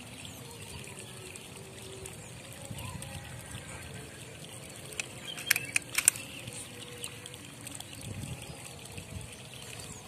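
Faint, steady outdoor background noise, broken about halfway through by a quick cluster of four or five sharp clicks.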